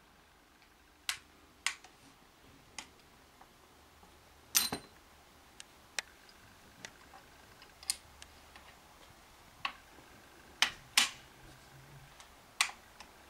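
Sharp metallic clicks and clacks of a Springfield Model 1873 "Trapdoor" rifle being reloaded between shots. The hinged breechblock is flipped open, the spent case is pulled out and a fresh cartridge goes in before the breech is snapped shut. The clicks are scattered and separate, the loudest a double clack about four and a half seconds in and another pair near the eleven-second mark.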